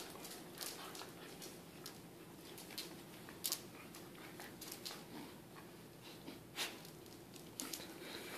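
Dogs tugging at a rope toy on a hardwood floor: faint scuffling with scattered clicks and knocks of claws and paws, the loudest about three and a half seconds in and again a little past six and a half seconds.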